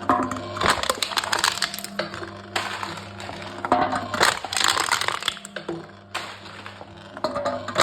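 Aluminium cans being crushed by a machine: three bouts of crunching, crackling metal, at the start, around four seconds in and near the end, over a steady low hum.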